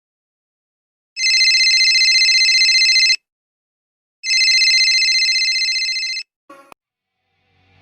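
A telephone ringing twice, each ring about two seconds of a fast warbling trill, about a second apart, followed by a brief click near the end.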